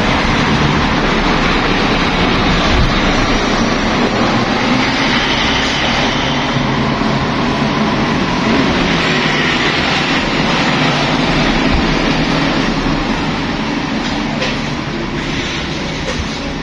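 Street traffic passing close by: a van and a heavy cargo truck drive past, a steady loud rumble of engines and tyres on the road that eases off near the end.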